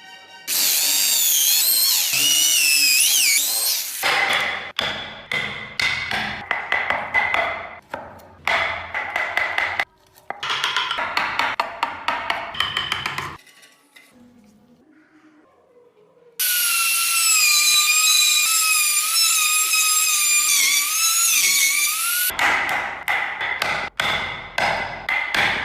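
High-speed rotary carving tool working wood. A high whine that wavers in pitch alternates with rough, crackling grinding as the bit cuts, with a pause of about three seconds in the middle.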